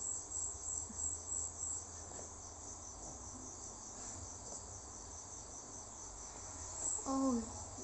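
High, regularly pulsing insect chirping, cricket-like, most distinct in the first two seconds and again near the end. A short voice is heard about seven seconds in.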